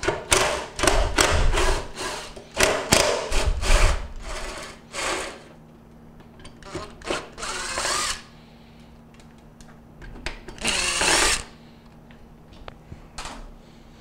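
Cordless drill/driver running in several short bursts, its motor spinning up and winding down each time, as it backs Phillips screws out of a refrigerator's ice-dispenser housing.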